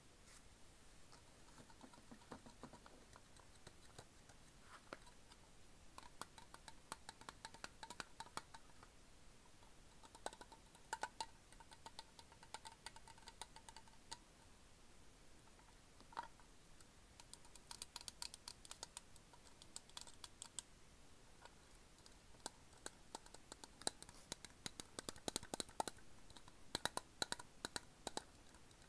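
Fingernails and fingertips lightly tapping and scratching a Sakuma Drops steel candy tin: quick, soft clicks in clusters with short pauses between.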